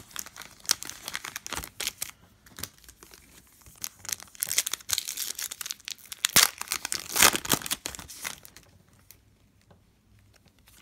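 Foil wrapper of a Donruss Optic basketball card pack crinkling and tearing as it is pulled open by hand, with the loudest crackling a little past the middle, then dying away.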